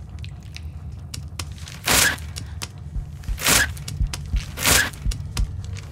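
Three short, rough ripping noises about a second and a half apart, typical of waxing strips torn from skin, over a low steady hum.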